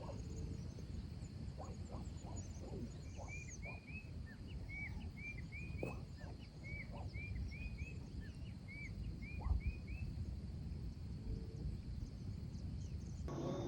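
Rural outdoor nature ambience: a steady high insect drone over a low rumble, with short rising chirps from a small animal repeated in quick runs of three or four through the middle.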